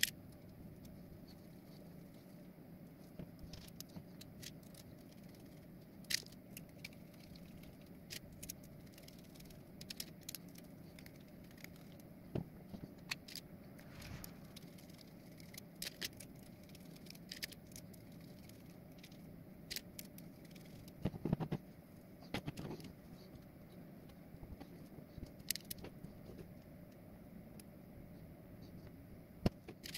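Small parts being handled and fitted by hand on a workbench: scattered clicks and clinks of screws, bearings and 3D-printed ABS plastic pieces being picked up, set down and pressed together, over a low steady hum. A short run of louder knocks comes a little past two-thirds of the way through.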